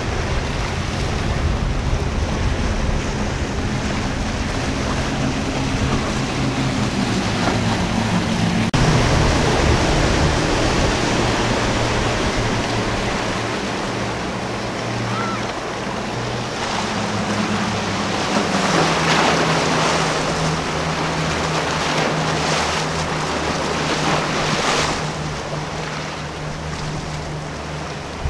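Four outboard engines on a large center-console boat running steadily, a low drone whose pitch drops twice as the throttle comes back, over the wash of waves and hull spray with wind on the microphone.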